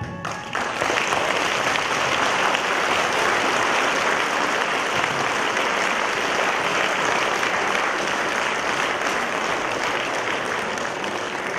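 Audience applauding steadily in a hall, beginning as a piece of music ends, and dying down near the end.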